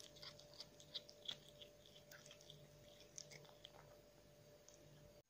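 Tabby kitten chewing and crunching food, a string of faint, quick, irregular clicks that thin out after about four seconds, over a steady faint hum.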